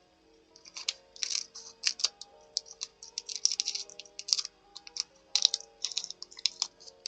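Paper and stationery being handled close to the microphone: irregular runs of small crisp clicks and rustles, over soft background music.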